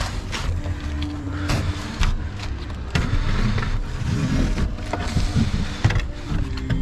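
Irregular knocks and scuffs over a low rumble: handling noise from a camera being moved about on an asphalt-shingle roof.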